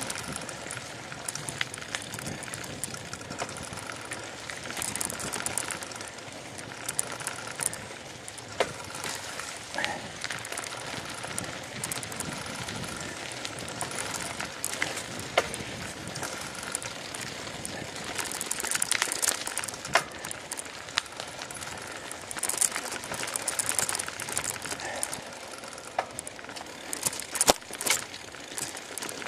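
Bicycle ridden along a rough dirt path: steady tyre noise and rattling from the bike, with frequent sharp clicks and knocks over bumps, busiest in the last third.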